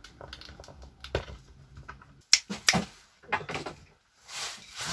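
Small metal parts clicking as they are handled, then a few louder knocks as a pair of pliers and other small items are set down on a workbench, and a short rustling scrape near the end.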